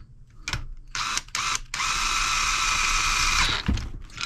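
Cordless DeWalt drill-driver (a drill, not an impact driver) spinning a socket to run the cylinder nuts down the studs of a two-stroke motorcycle engine. Two or three quick blips of the trigger, then a steady motor whine for about a second and a half that stops abruptly, followed by a click.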